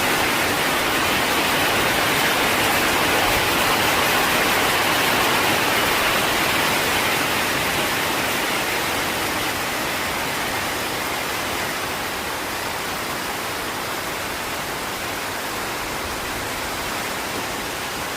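Steady rain falling, a dense even hiss that eases slightly over the second half.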